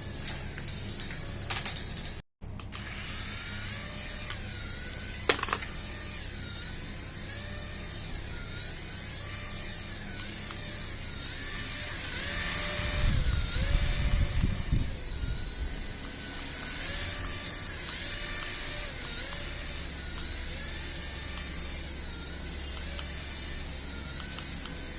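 Small electric motor of a toy remote-control vehicle whining, its pitch rising and dropping again about once a second as the throttle is worked. A louder low rumble comes about halfway through.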